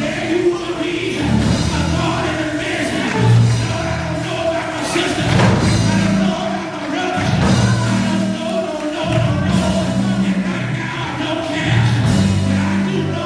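Live gospel music: a voice singing over a band, with held bass notes that change every second or so.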